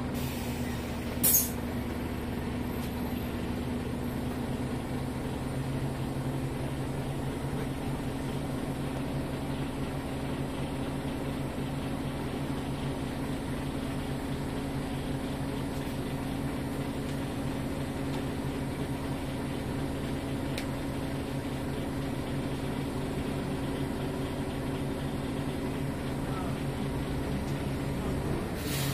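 Renault R312 city bus's diesel engine running steadily, heard from on board, its pitch holding level throughout. A short sharp burst of hiss comes about a second in.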